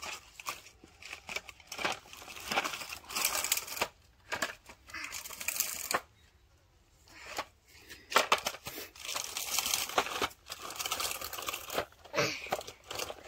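Irregular rustling, scraping and crackling as a baby macaque clambers on bamboo poles and a woven bamboo wall, coming in uneven bursts with a quiet pause about halfway through.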